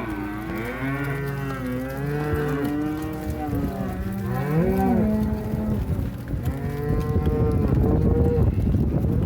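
A herd of cattle mooing, many calls overlapping, some rising and falling in pitch. From about seven seconds a steady low rumbling noise grows underneath the calls.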